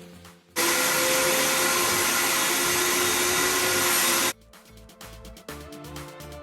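Wet/dry vac running steadily with a whining motor, sucking standing water out of the dishwasher tub; it starts abruptly about half a second in and cuts off about four seconds in. Background music with a beat plays around it.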